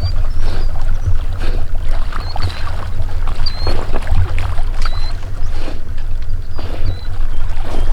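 Water splashing and sloshing over a steady low rumble, with short high chirps every second or so.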